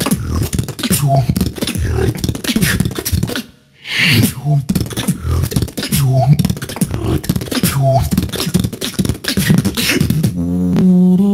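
Beatboxer performing a battle round: mouth kicks and snares in a steady rhythm with short sweeping bass notes, broken by a brief gap about three and a half seconds in. Near the end it turns into a held, hummed bass tone.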